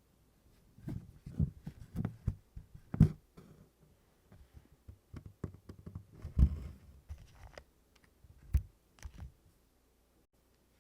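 Embroidery needle punching through taut 24-count Congress cloth and DMC floss drawn through it in tent stitch: an irregular run of soft thumps and short scratchy pulls, the strongest about three and six and a half seconds in.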